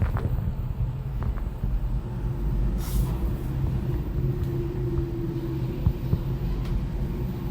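Schindler 3300 lift car travelling down, heard from inside the car: a steady low rumble, joined about three seconds in by a steady hum after a brief hiss.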